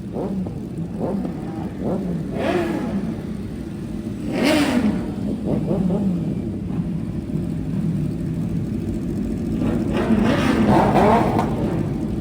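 Several sportbike engines idling and being revved at once, overlapping blips. The sharpest revs come about two and a half seconds in, about four and a half seconds in, and again at around ten to eleven seconds.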